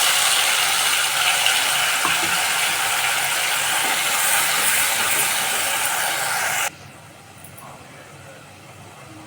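Loud, steady hissing from a cooking pot on the stove. It starts suddenly and cuts off abruptly about six and a half seconds in.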